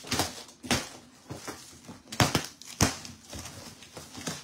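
Cardboard box and packaging being handled and opened: rustling and crinkling, with about five sharper scrapes or knocks spread through.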